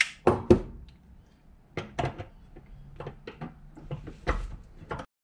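Metal clicks and knocks as individual throttle bodies of a BMW M52 ITB kit are handled and fitted together side by side. They come as a quick cluster at the start and then scattered single taps, and the sound stops abruptly near the end.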